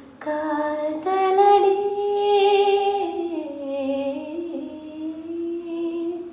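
A woman humming a slow melody unaccompanied, in long held notes: the pitch steps up about a second in, dips lower around the middle, then rises again and holds until it stops near the end.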